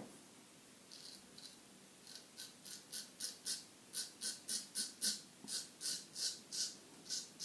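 Solingen H. Geffgen 6/8 straight razor scraping over lathered stubble in short, quick strokes against the grain, about three a second. The strokes start about two seconds in.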